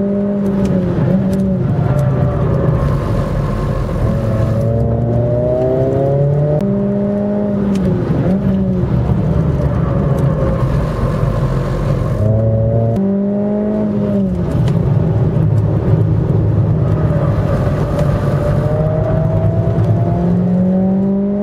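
Suzuki Swift Sport ZC31S's 1.6-litre four-cylinder engine revving up and down through gear changes under hard driving, with a buzzing "jijijiji" noise from the limited-slip differential coming in around corner exits, which the owner puts down to degraded LSD oil.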